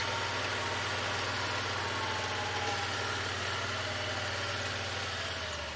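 A motor vehicle's engine idling with a steady low hum, then shut off near the end.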